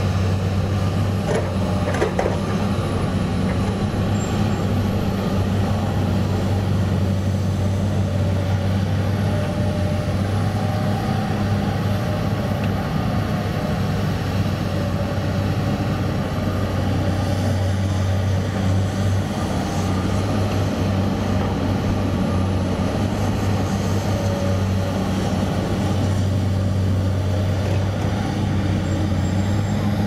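Komatsu PC200 excavator's diesel engine running with a steady low drone, easing off and building back up a couple of times as it works. A couple of faint clicks come about one to two seconds in.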